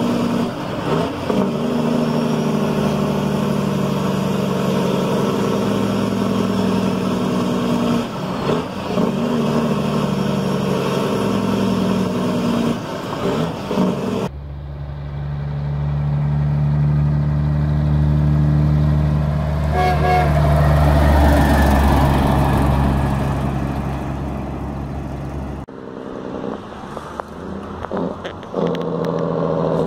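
Semi-truck diesel engines. First a steady engine drone heard from inside the cab, with brief dips about 8 and 13 seconds in. Then a louder, deeper truck engine drone that swells and fades, with a short horn-like tone about two-thirds of the way through. Near the end, a quieter truck engine on a highway, rising in pitch.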